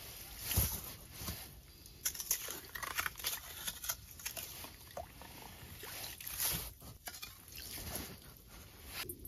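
Slotted ice scoop clearing slush and ice chips from an ice-fishing hole: irregular scrapes and crunches of ice with sloshing water.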